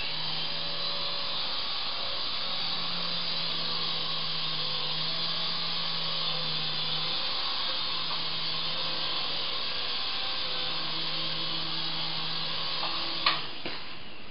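Syma S109 mini R/C helicopter in flight: its small electric motors and rotor blades give a steady high whir with a low hum that comes and goes. Near the end there is a sharp knock, and the whir drops off just after it.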